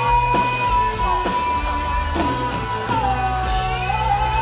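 Live blues-rock band playing, with guitar and a steady bass; a long held high note slides down about three seconds in and then wavers.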